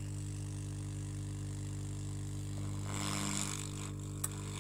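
Hot air rework station gun blowing steadily as it heats a small surface-mount resistor held in tweezers, soldering it onto the motherboard, with a steady low hum under it. A brief rise in hiss about three seconds in and a single sharp click shortly before the end.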